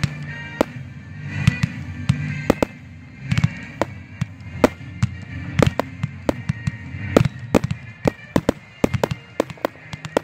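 Aerial fireworks shells bursting, a string of sharp bangs at irregular intervals that come faster near the end.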